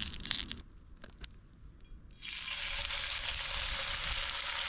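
Entrecôte steaks searing in hot clarified butter in a forged pan: a steady sizzle starts suddenly about two seconds in. Before it come a few light clicks of the spoon against the pan.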